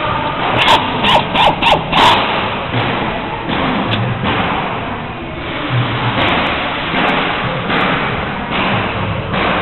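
Five quick hammer blows on wood, about three a second, then rough rasping strokes of a hand tool working the wood, about one stroke a second.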